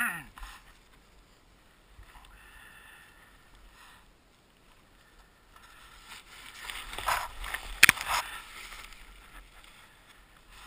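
A tipped-over Yamaha RX-1 snowmobile being handled in deep snow, its engine silent: snow scraping and rustling. A loud scuffle with a few sharp knocks comes about two-thirds of the way through as the sled is heaved.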